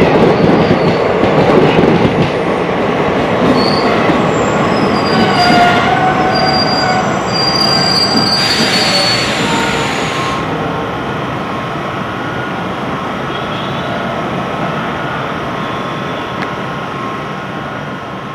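Passenger coaches of an express train rolling past and drawing away. Their wheels squeal in thin, high steady tones for several seconds in the middle, and the rolling rumble fades steadily as the train recedes.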